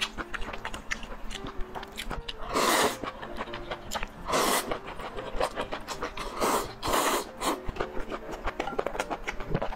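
Close-miked noodle slurping, with four loud slurps through the middle, the last two close together. Between them are wet chewing and small mouth clicks.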